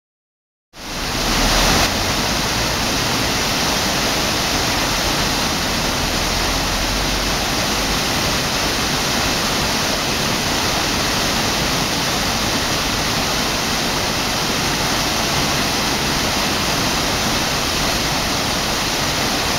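Choshi Otaki waterfall on the Oirase stream: the steady, even rush of a large waterfall, cutting in suddenly out of silence just under a second in.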